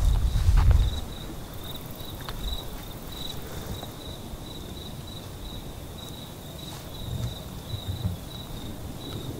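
Crickets chirping in a steady pulsing trill throughout. Low bumps and rustles come from the person carrying the camera: loudest in the first second, and again around seven to eight seconds in.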